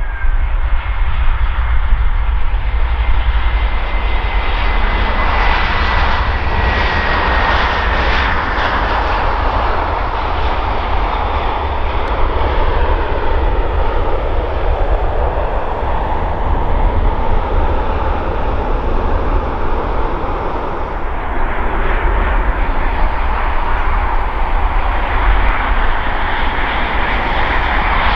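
Airliner jet engines close by: an Airbus A320 landing, with a thin whine that falls slightly in pitch over a loud, steady rumble and roar. About three quarters of the way in the sound changes to a Boeing 737-800's engines as it rolls along the runway.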